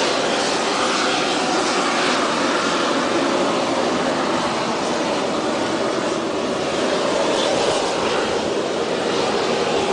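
Volcanic fumarole venting steam: a loud, steady rushing hiss with no breaks.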